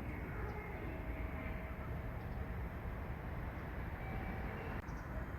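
Steady low rumble of a train, with faint thin tones that come and go.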